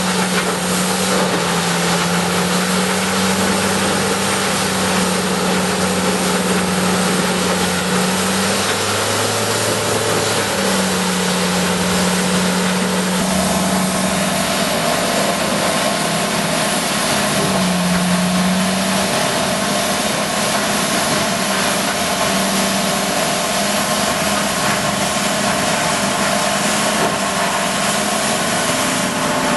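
Peterson tracked horizontal grinder's diesel engine running hard while it grinds logs and stumps fed in by an excavator grapple: a loud, steady din of engine and grinding, with the engine note wavering a few times.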